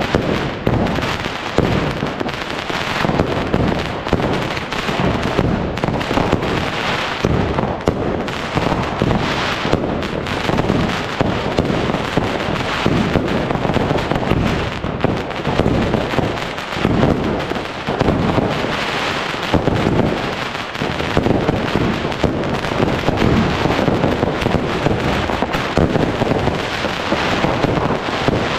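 Many fireworks and firecrackers going off at once: a continuous barrage of overlapping bangs and crackles with no let-up.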